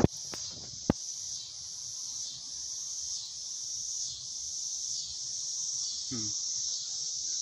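Steady chorus of insects, a high shrill hum with a slow pulse. Two sharp clicks come at the start and about a second in, and a short falling sound comes about six seconds in.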